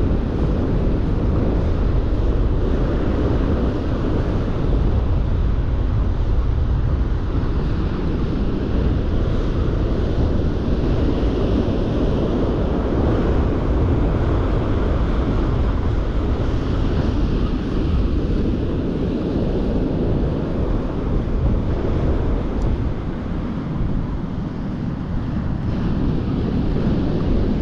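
Strong wind buffeting the microphone over the steady wash of surf on a rough day.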